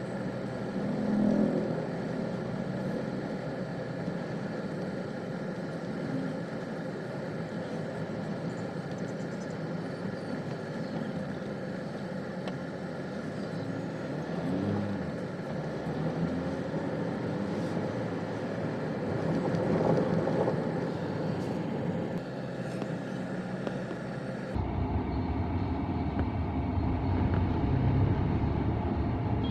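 A road vehicle on the move, with steady engine and road noise. About three-quarters of the way through, the sound changes abruptly to a heavier low rumble.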